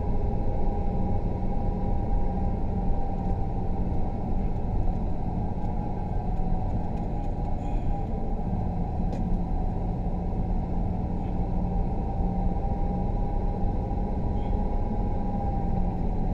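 Engine and tyre noise heard from inside a car's cabin as it drives slowly: a steady, muffled rumble with a faint constant hum.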